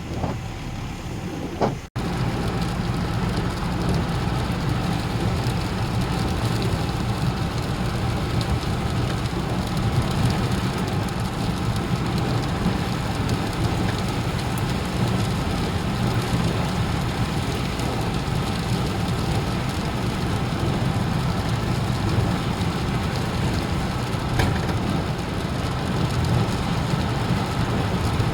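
Steady heavy rain falling, with a constant low rumble beneath it. The sound drops out briefly about two seconds in and then carries on a little louder.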